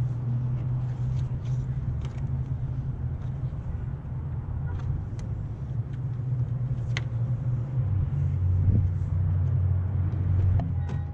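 Low, steady rumble of a running motor vehicle engine, its pitch shifting lower about eight seconds in, with a few faint clicks and taps over it.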